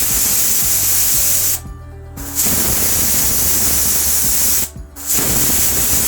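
Pressure cooker whistling: loud jets of steam hissing from the vent as the weight lifts, in long stretches broken twice by short pauses, about one and a half seconds in and again near five seconds. These are the cooker's whistles, each a sign that it has reached full pressure with amla steaming inside.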